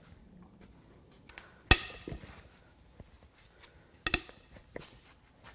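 Metal clanks from a socket and long breaker bar working the head bolts of a Jeep 4.0L inline-six's cast-iron cylinder head as they are cracked loose. Two sharp, briefly ringing clanks, the first just under two seconds in and the louder, a doubled one about four seconds in.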